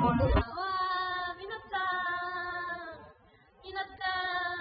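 A woman's voice singing three long held notes, with a short break before the last one.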